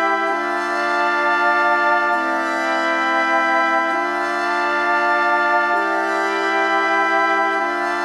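Background music of sustained, held chords that change about every two seconds, with no beat.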